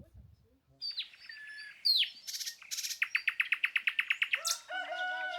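Songbirds chirping and calling, with a fast trill of about ten notes a second in the middle. Near the end a long, steady-pitched call begins.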